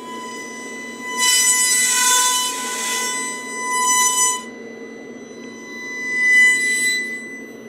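Coiled-wire resistor load bank singing a steady, high, buzzy tone as a bridged Crest V900 PA amplifier drives a sine test signal into it at high power. It is really loud, swells about a second in, eases, and swells again near the end. The owner puts the noise down to magnetism making the coils and the metal box vibrate.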